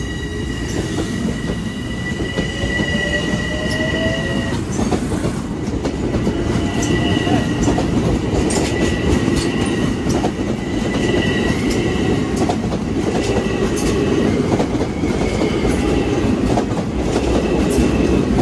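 Long Island Rail Road passenger train running past close by. Its wheels rumble and click over the rail joints, with a high, steady wheel squeal that holds for the first few seconds and then comes and goes.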